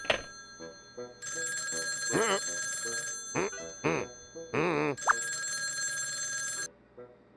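Cartoon telephone bell ringing. It breaks off just after the start, starts again about a second in and stops suddenly near the end.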